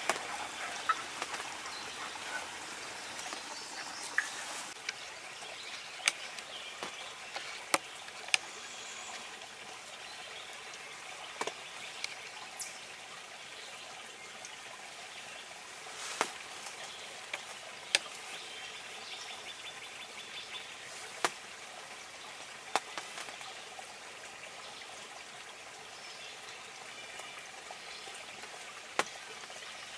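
Outdoor woodland ambience: a steady hiss with faint bird calls, broken by about a dozen short, sharp clicks scattered throughout.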